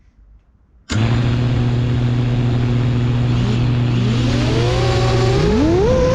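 FPV quadcopter's electric motors and propellers start abruptly about a second in with a steady low hum, then rise in pitch into a higher whine as the throttle comes up.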